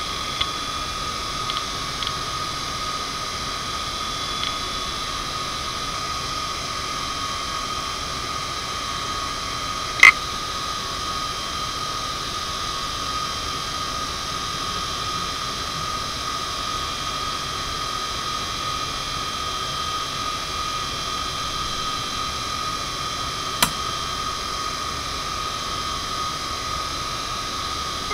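1993 Toshiba MK2326FC 340 MB 2.5-inch IDE hard drive spinning at 4200 rpm with a steady high whine and hiss. A few faint head ticks sound in the first seconds, and there are two sharp clicks, one about ten seconds in and one near the end.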